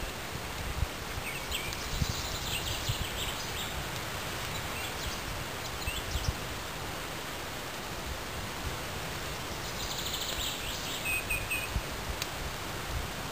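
Woodland birdsong over a steady outdoor hiss: two passages of quick high chirps and trills, about two seconds in and again about ten seconds in, with faint rustling and low bumps close by.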